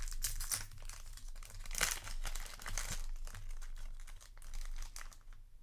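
A trading-card booster pack wrapper being torn open and crinkled by hand, with crackling rustles and a couple of louder crinkles about two and three seconds in.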